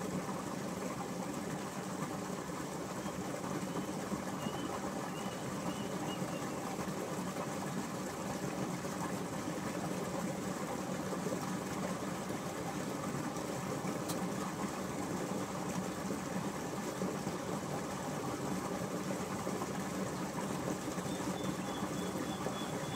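A motor running steadily at one even speed, a constant hum with no change in pitch or level. Faint high chirps come in a few seconds in and again near the end.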